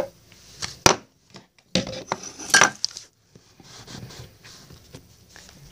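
A sharp click about a second in, then a cluster of knocks and rustling about two seconds in, dying down to faint rustling: close handling noise, with something knocking or clinking near the microphone.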